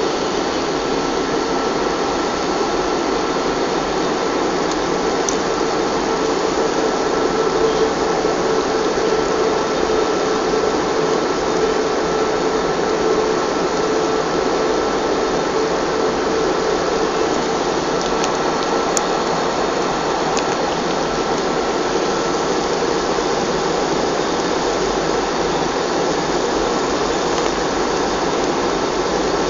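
Steady engine and airflow noise inside the cabin of an Airbus A320 airliner descending to land, with a steady hum running through it.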